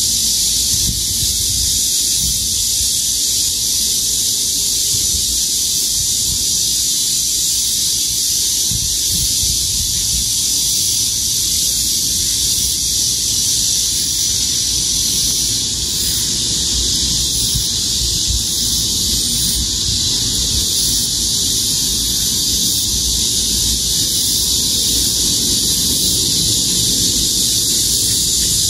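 A steady, unbroken chorus of cicadas and grass insects, a dense high-pitched shrill, with a low rumble underneath.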